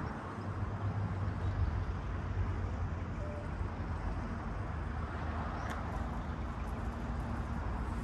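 Steady low rumble of city road traffic, with a faint engine hum under it.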